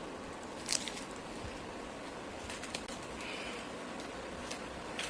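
Faint clicks and crinkles of duct tape being handled and pressed onto furnace filter frames, over a steady hiss.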